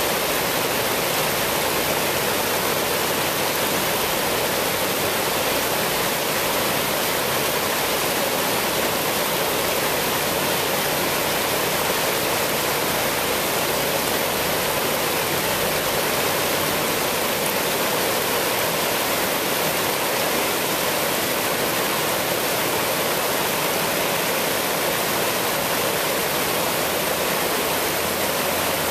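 River water rushing steadily over shallow rocky rapids, a dense unbroken rush.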